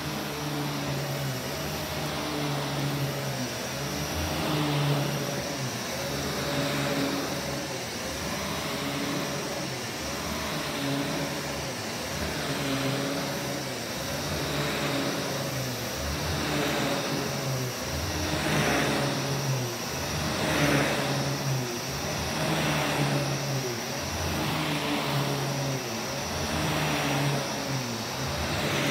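Vax Commercial VCU-03C upright vacuum cleaner running while pushed back and forth over carpet, its motor note rising and falling every second or two with each stroke.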